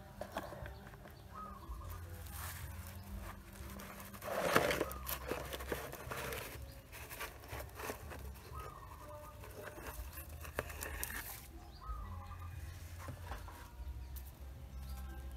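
Dry straw rustling and crackling as chicken eggs are moved by hand from a plastic basin onto a straw nest in a wicker basket, with one louder rustle about four and a half seconds in.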